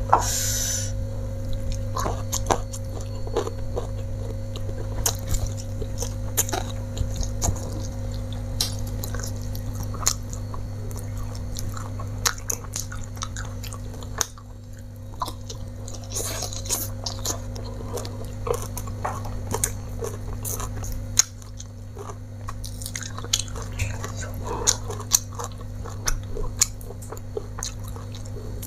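Close-up chewing of a person eating rice, fried fish, sambal and raw greens by hand, picked up by a clip-on microphone: many short wet smacks and crunches. A steady low hum runs underneath.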